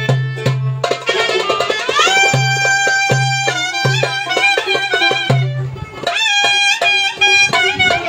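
Live Turkish folk dance music: a clarinet plays the melody, with a long upward glide about a second and a half in, over a steady beat of drum strokes.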